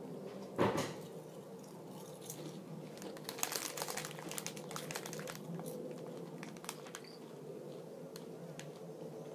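A potato crisp crunched once, sharply, about half a second in, followed by a stretch of crackling from about three to five seconds as more crisps are chewed and the foil crisp packet is handled, with a few more crackles later.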